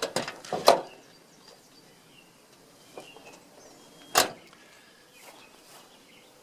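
Several sharp knocks and clicks in the first second, then one more loud knock about four seconds in, with faint bird chirps in the background.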